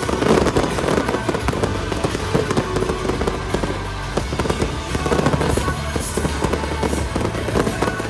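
Fireworks bursting in rapid, overlapping bangs and crackles, over music played loud for the pyromusical show.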